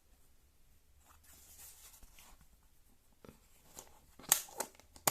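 Hands handling a plastic tablet case and its packaging: soft rustling, then a few sharp clicks and taps near the end.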